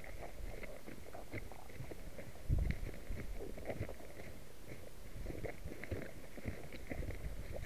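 Footsteps and rustling as someone walks through dry scrub, with small scattered clicks and a dull low bump about two and a half seconds in.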